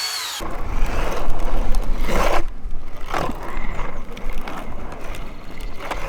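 Aggressive inline skates rolling and scraping on a hard surface, a continuous rough grinding rumble with brief louder scrapes about two, three and six seconds in.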